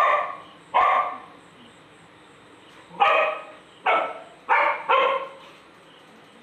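Small white dog barking: two sharp barks, a pause of about two seconds, then four more in quick succession.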